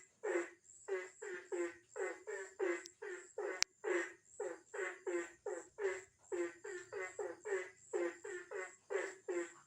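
Frog calling over and over in quick, even croaks, about three a second, with insects keeping up a faint high buzz behind it. A single sharp click comes a little past three seconds in.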